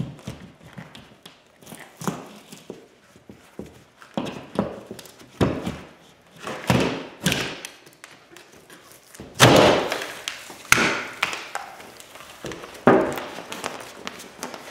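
Drywall being pried and broken away from the studs with a pry bar: irregular thuds, scrapes and cracks of the gypsum board snapping, the loudest a little past halfway.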